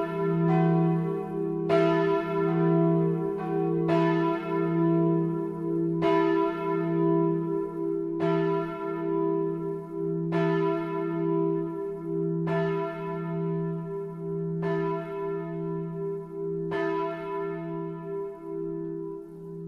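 Full peal of four swinging church bells tuned e¹, fis¹, a¹ and h¹: two cast by Ernst of Lindau in 1692 and two by Bachert of Heilbronn in 1954. They sound together in overlapping strikes about every two seconds, each ringing on under the next with a steady low hum.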